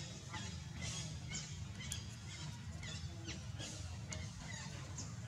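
Small birds chirping repeatedly, short high chirps that slide downward in pitch, about two a second, over a steady low rumble.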